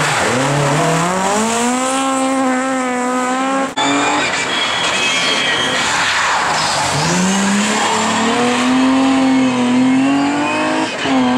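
Historic rally car engines run hard at high revs as the cars accelerate through a stage, the pitch climbing and then holding. An abrupt cut to another car comes about four seconds in, and a second rise in revs about seven seconds in, with a short dip near the end like a gear change.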